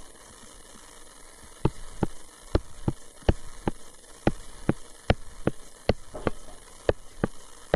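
Regular sharp clicks, about two or three a second, starting about one and a half seconds in, made while drawing marks with an on-screen drawing tool, over a faint steady hum.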